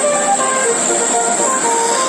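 Basuri telolet horn on a medium tour bus playing a quick melody of short, clear notes stepping up and down in pitch, over a steady high hiss.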